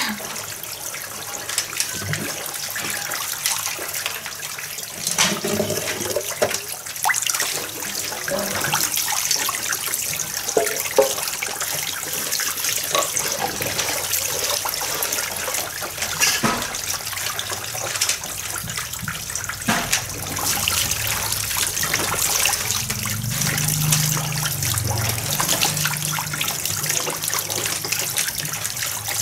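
Water running from a hose into plastic basins as chopsticks and dishes are washed, with occasional brief clinks and knocks of the utensils.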